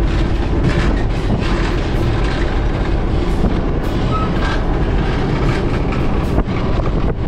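Freight train running along the track, heard from on board: a loud, steady rumble of wagons and wheels with repeated short clicks and knocks of the wheels over the rails.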